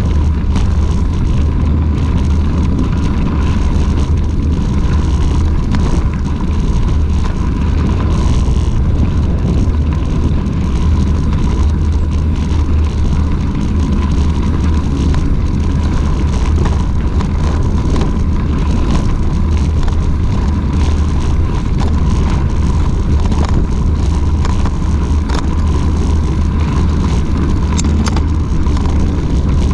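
Wind buffeting the microphone of a camera mounted on a moving mountain bike, a steady heavy rumble, mixed with the tyres crunching over a gravel path and small rattles from the bike.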